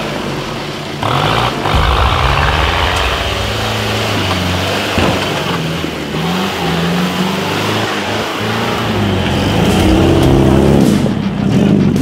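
Off-road 4x4 engine revving hard under load as the vehicle climbs a steep muddy slope, its pitch rising and falling again and again, loudest near the end.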